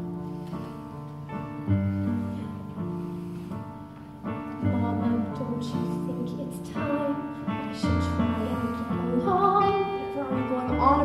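Musical-theatre accompaniment on keyboard, playing held chords, with a woman's singing voice coming in about two-thirds of the way through, sung with vibrato.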